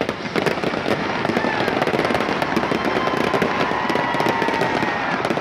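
Aerial fireworks bursting overhead in rapid succession, a dense continuous crackle of many small reports.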